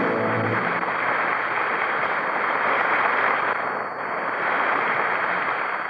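Studio audience applauding the star's introduction, a dense, even clatter of many hands. The last held chord of the orchestra's music ends under it about half a second in.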